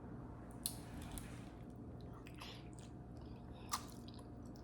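Faint chewing, with a few short, scattered mouth clicks.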